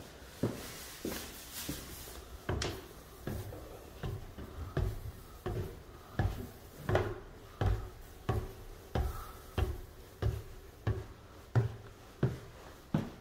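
Footsteps of a person walking at an even pace across a wooden floor, about three steps every two seconds, each a dull thud with a light click.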